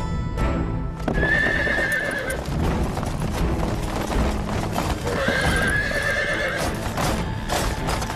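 Horse hoofbeats with a horse neighing twice, each a wavering call of about a second, over background music.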